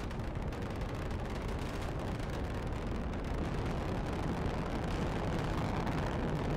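Falcon 9 first stage's nine Merlin engines in ascent, a steady rumbling noise heaviest in the low end.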